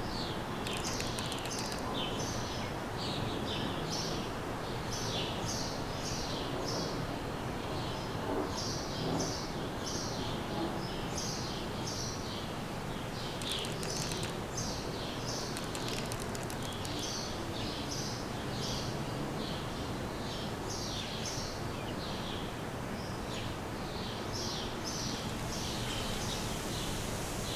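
Songbirds chirping in quick repeated bursts over a steady low background noise.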